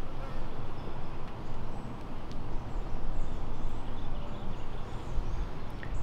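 Honeybees humming over an open hive as its frames are lifted out, with faint bird chirps in the background. The colony has no queen and no eggs.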